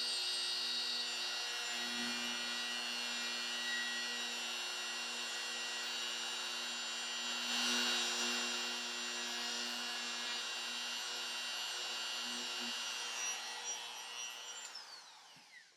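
Bosch Colt 1.0 HP compact router running at a low speed setting, a steady whine as its flat-bottom bit routs out a shallow hinge mortise in the wooden box's edge. Near the end the router is switched off and the motor winds down, its pitch falling.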